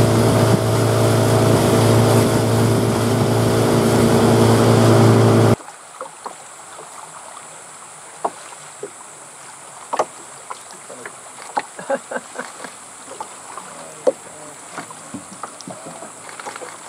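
A motorboat's outboard engine running at speed with a rush of water and wind, cutting off suddenly about five and a half seconds in. Then quieter rainforest ambience: a steady high insect drone with scattered short clicks and chirps.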